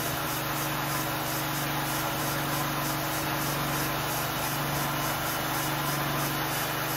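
Sawmill running steadily: a constant engine-like hum with a wash of mechanical noise, holding level throughout.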